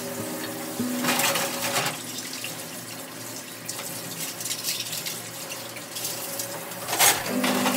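Kitchen tap running into a steel sink while dishes are washed by hand, with louder splashing about a second in and a sharp splash near the end.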